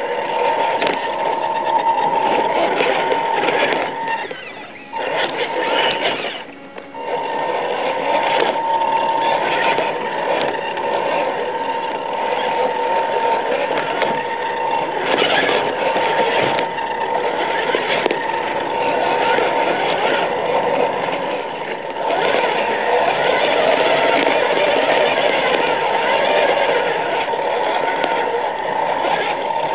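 Radio-controlled rock crawler's small electric motor and gears whining steadily. The whine drops out briefly twice, about four and a half and six and a half seconds in.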